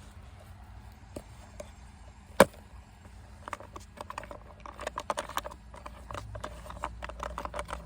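Handling noise of a camera mount being adjusted: a sharp knock about two and a half seconds in, then a quick run of small clicks and rattles as it is moved and worked at a clamp that won't tighten.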